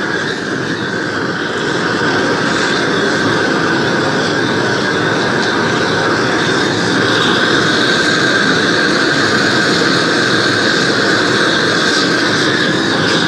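Oxy-acetylene torch flame burning with a steady, loud hiss as it preheats an aluminium part all over before welding.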